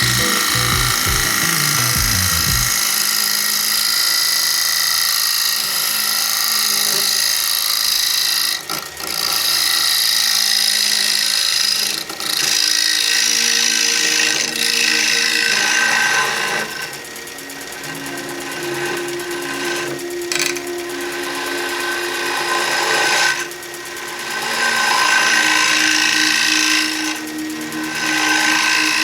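Small bench wood lathe running while a round nose scraper cuts a spinning wooden platter: a steady scraping hiss over the lathe's motor whine. The cutting sound eases off briefly several times.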